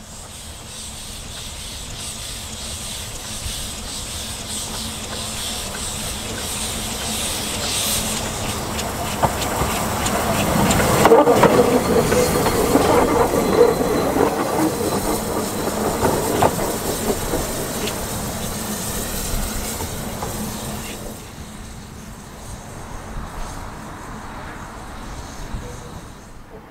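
Double Fairlie steam locomotive Merddin Emrys running slowly with steam hissing and wheels clicking over the rail joints. It grows louder as it draws close, loudest about eleven to fourteen seconds in, then fades away.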